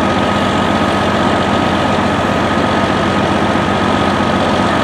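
Heavy truck engine idling steadily and loudly, with a thin steady whine above it.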